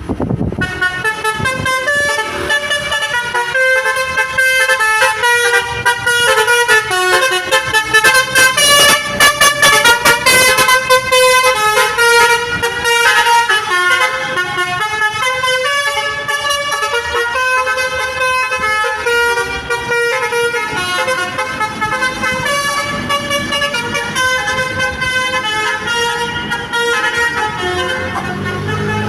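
Basuri V3 telolet horn playing a quick melody: loud stacked horn tones stepping up and down in pitch several times a second, without a break.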